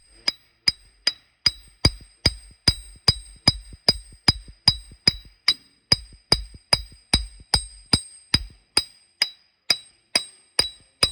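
Hammer tapping the steel stub shaft into the front differential of a GMC Savana van, about two and a half ringing metallic taps a second and spacing out a little near the end: the shaft being driven home into the differential.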